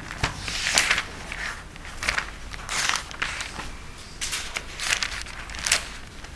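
Paper rustling as sheets are handled and Bible pages are turned, in a series of short crinkly rustles spread over several seconds.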